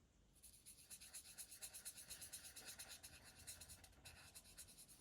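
Marker nib scratching across cardstock in quick back-and-forth colouring strokes, several a second, starting about half a second in: faint hand colouring of a stamped image.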